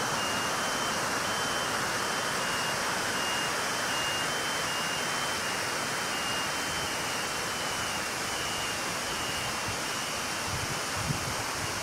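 Floodwater of a swollen river pouring over a weir and churning through submerged railings, a steady rush of white water. A faint thin high tone steps back and forth between two close pitches behind it.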